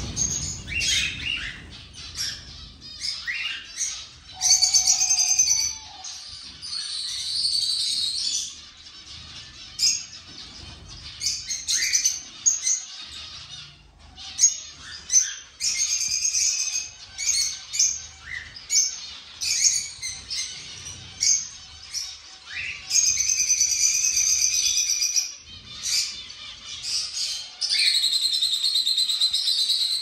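A mixed flock of small aviary birds, finches and canaries among them, chirping and calling over one another. Several times the chirping gives way to stretches of high, fast trilling song, each lasting a second or two.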